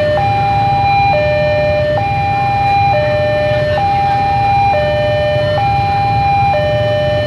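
Railway level-crossing warning alarm sounding its electronic two-tone call. A higher and a lower tone alternate steadily, each held just under a second, over a steady low rumble.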